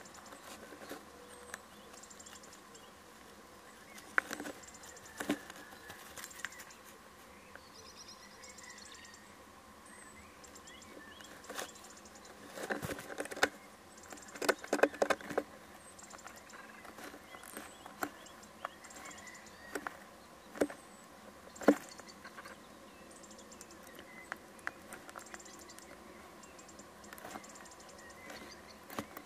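Scratching, scuffling and sharp knocks of a bird shifting about on the floor and walls of a wooden nest box as it works its prey down whole, with the busiest clatter about halfway through and one sharp knock a little later. Faint short high chirps repeat in the background.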